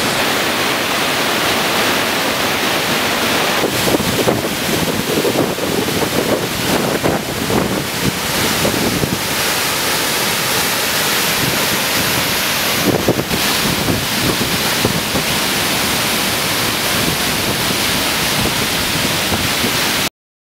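Loud, steady rush of a waterfall and whitewater rapids heard at close range. Gusts of wind and spray buffet the microphone through the middle stretch, and the sound cuts off suddenly near the end.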